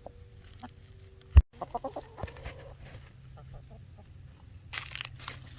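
Chickens clucking in short calls, with one loud thump about a second and a half in and a brief rustle near the end.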